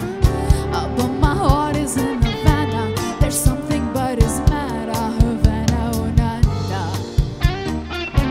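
Live pop band playing: a steady drum kit beat with keyboard and electric guitar, and a woman's voice singing a sliding melody over it.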